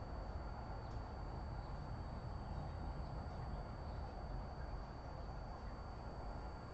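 Steady outdoor background hiss and low rumble under a constant high-pitched whine, with a few faint short bird chirps.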